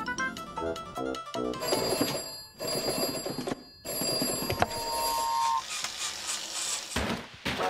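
Rotary telephone bell ringing about a second and a half in, in long rings broken by two short pauses, after a few seconds of cartoon music.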